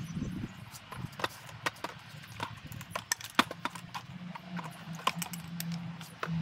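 Long-handled loppers cutting hollow plant stems: a string of sharp, irregular clicks and snaps as the blades bite through the stems.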